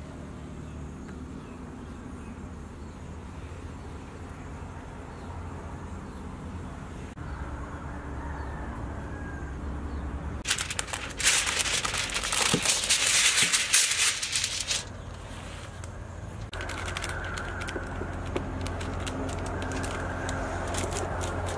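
Aluminium foil crackling: about halfway through there is a loud rustling run of several seconds, then lighter crinkling with many sharp ticks as the sheet is handled and cut with a knife. Before the foil, only faint bird chirps over a low steady hum.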